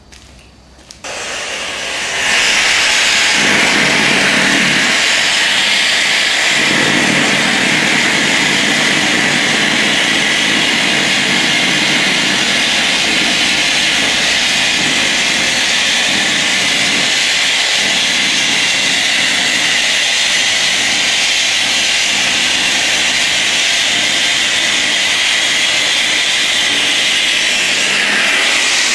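Gas hissing steadily through a hose into a large balloon, a weather balloon by its look, as it inflates. The hiss starts about a second in and reaches full strength a second later.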